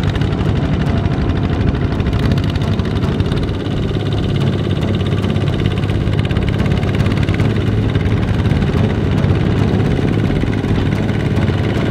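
Kubota ZT155 walking tractor's single-cylinder diesel engine running steadily with a fast, even firing beat, under load as it hauls a trailer of rice sacks through mud.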